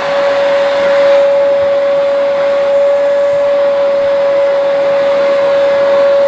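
Household vacuum cleaner running steadily, a constant motor whine over a rush of air.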